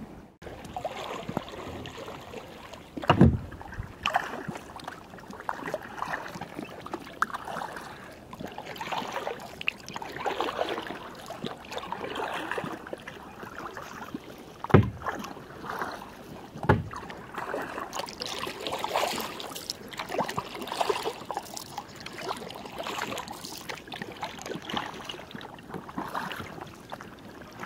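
Partially submerged mud volcanoes venting gas, bubbling and sputtering irregularly through wet mud and shallow water, heard close up from a kayak. Three sharp knocks stand out, one about three seconds in and two close together a little past halfway.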